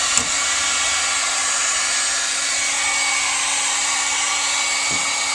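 Electric heat gun running steadily, its fan blowing with a steady low hum as it softens old coating on a sheet-metal floor pan for scraping. One brief tap near the start.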